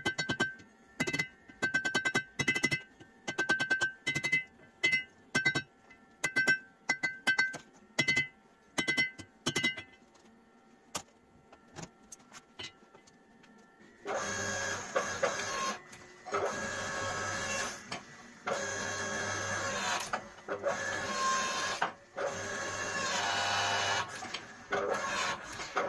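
Hand hammer striking a glowing steel billet on an anvil in quick groups of blows, each blow ringing, for about ten seconds. After a pause, the electric motor and hydraulic pump of a log-splitter forging press run loudly and steadily, with brief stops, as the hot billet is pressed.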